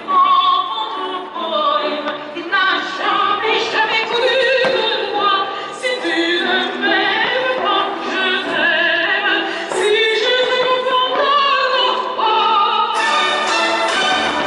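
Classical music with operatic singing: voices held on long notes with a wide vibrato over orchestral accompaniment.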